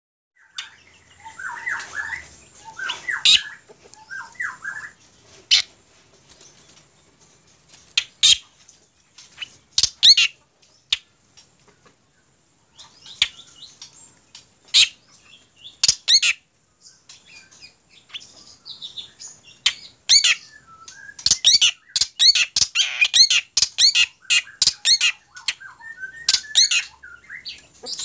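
Caged black drongo giving harsh, sharp squawking calls. The calls come singly and spaced apart at first, with some lower chattering near the start, then turn into a fast, busy run of calls for the last several seconds.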